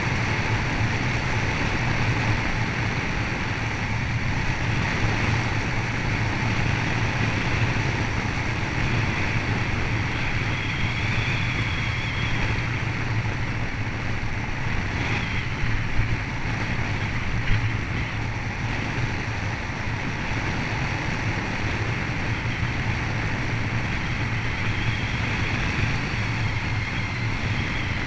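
Steady rush of wind over the microphone of a helmet camera on a tandem bicycle descending fast, with a low rumble underneath. A couple of short knocks come past the middle.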